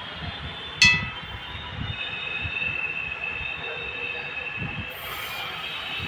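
Refrigerant gas rushing from the gas cylinder through the charging hose into the air conditioner, the cylinder valve opened quite fast: a sharp click about a second in, then a steady high whistle over hiss, turning to a brighter hiss near the end.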